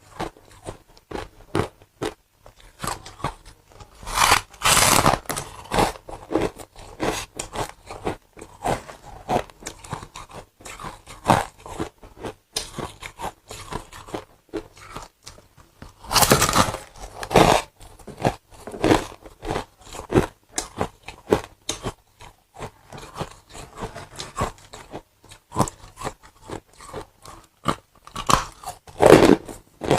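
A person biting and chewing frost and ice: dense crunching all through, with louder bites about four seconds in, around sixteen seconds and near the end.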